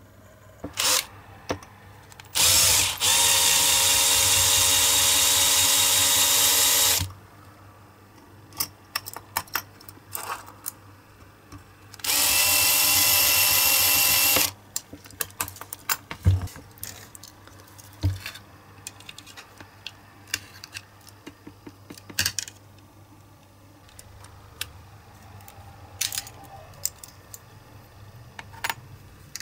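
Cordless drill drilling into the diecast metal baseplate of a Matchbox model car: two runs with a steady motor whine, the first about two seconds in and lasting about four and a half seconds, the second about twelve seconds in and lasting about two seconds, after a brief blip near the start. Between and after the runs, light clicks and taps.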